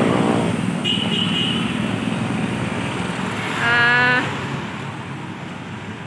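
Street traffic noise, a steady rumble of passing vehicles. A short high tone sounds about a second in, and a louder steady pitched sound lasting about half a second comes about four seconds in.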